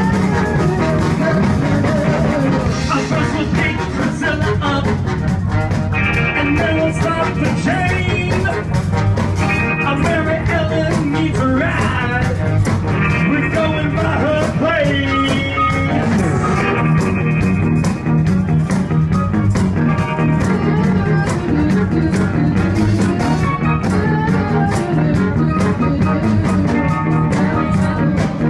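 Live band playing with electric guitar, bass, drums and a horn section of trombone and saxophones, with a steady beat and singing over it.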